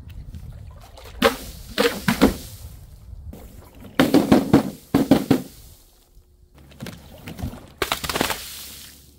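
A series of drops, each a sudden hit followed by a short splash of liquid, about seven in all, with the loudest cluster around the middle.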